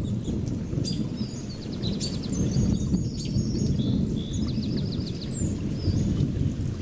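A steady low rumble of thunder and rain, with short high chirps scattered through it, mostly in the first half.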